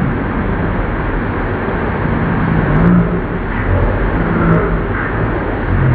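Old lathe running with its spindle turning: a steady mechanical noise with a low hum that swells and fades now and then.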